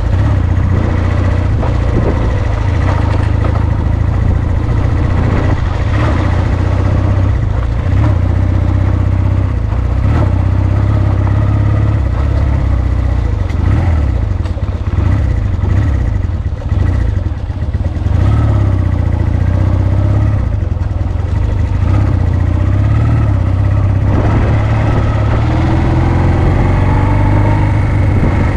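Honda CD125T Benly's small four-stroke engine running under way as the motorcycle is ridden off-road, its note wavering up and down with the throttle and easing off briefly a little past halfway.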